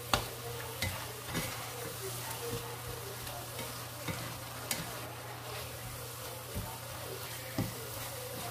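Chicken, carrots and onion sizzling with oyster sauce in a nonstick frying pan while a slotted spatula stirs them, its edge scraping and clicking against the pan now and then, with the sharpest knock right at the start.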